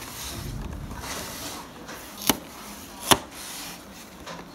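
Hands handling a cardboard product box: low rubbing and shuffling against the cardboard, then two sharp taps or knocks on it, a little under a second apart.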